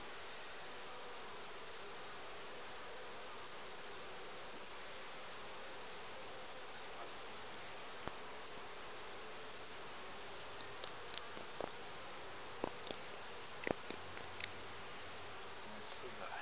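Honey bees buzzing steadily over an open hive. Between about ten and fifteen seconds in come a few sharp clicks and knocks as wooden frames are shifted in the box, the loudest near the end.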